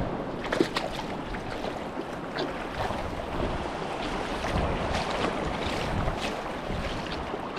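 Wind noise on the microphone over washing waves, with a few light clicks and knocks scattered through.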